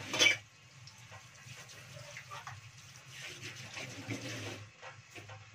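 Tap water running and splashing into a stainless-steel sink, heavier towards the end and stopping about four and a half seconds in, after a sharp knock at the very start.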